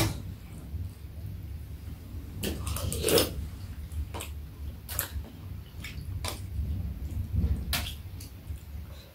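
Chopsticks and a metal spoon clinking and tapping against a metal serving plate and bowls while eating, scattered light clicks about once a second.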